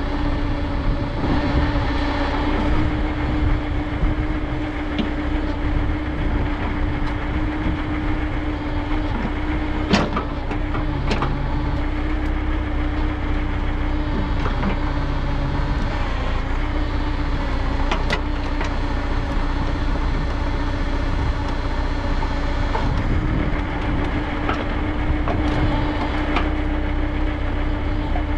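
Diesel engine of a YuMZ EO-2621 tractor-backhoe running steadily under digging load, with a constant whine over a low rumble. A few sharp knocks come through, about a third of the way in, again a second later, and once more past halfway, as the bucket strikes rocks.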